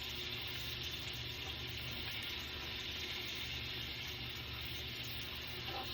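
Collard greens sizzling steadily as they fry in a pan, over a low steady hum.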